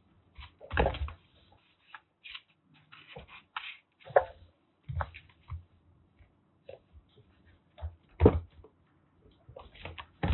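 Irregular thumps, taps and scrapes of kittens scuffling and pouncing as they play, with the loudest thumps about a second in and about eight seconds in.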